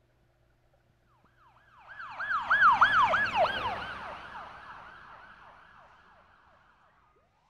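Emergency vehicle siren in a fast yelp, about three rising-and-falling sweeps a second, swelling up loud about two seconds in and then fading away as it passes. A single slow rising sweep starts just before the end.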